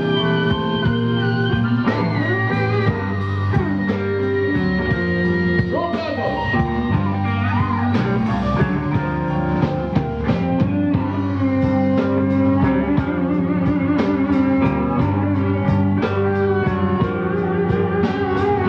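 Live blues band playing: harmonica played into a microphone, with electric guitar and drums. Several notes bend in pitch around the middle.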